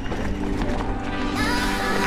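Background music with held notes and short rising glides.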